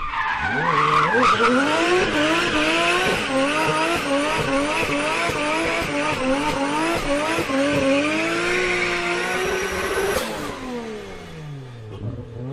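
Toyota GT86 drift car spinning donuts, its engine revs rising and falling in quick, even pulses over the hiss and squeal of the spinning rear tyres. Near the end the revs drop away and the sound fades.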